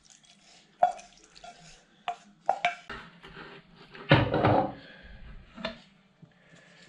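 A wooden spoon knocking and scraping against a frying pan and a glass bowl as cooked chilli peppers are tipped in, with separate clinks and knocks. A louder clatter comes about four seconds in as the glass bowl is set down on the stove.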